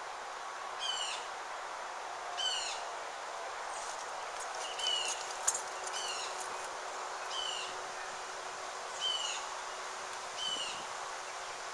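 A small songbird repeating a short high phrase of quick notes stepping downward and ending on a lower note, about seven times, every second or two, over a steady background hiss. A single sharp click about halfway through.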